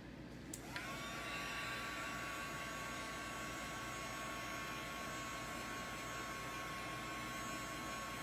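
Hair dryer switched on about a second in, its motor whine rising quickly to a steady high pitch and then running evenly over a rush of blowing air.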